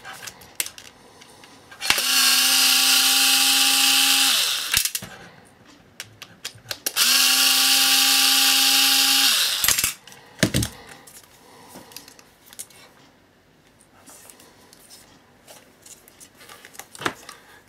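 Cordless electric screwdriver running twice, about two and a half seconds each, backing out the screws of a hard drive's mounting bracket: a steady motor whine that drops in pitch as it stops. Small clicks and handling rattles fall between the runs.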